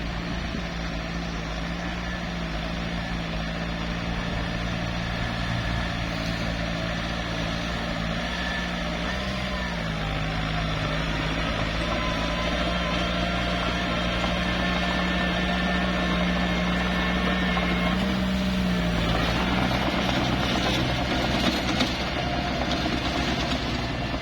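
Small bulldozer's diesel engine running steadily. Its pitch dips briefly twice, about nine seconds in and again near nineteen seconds, and a rougher noise builds over the last few seconds.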